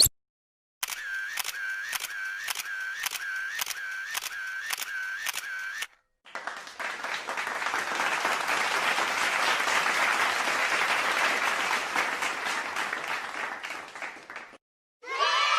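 Two sound effects in a row. First comes a regular run of sharp clicks, about two a second for five seconds, each with a short tone. After a brief gap comes about eight seconds of applause.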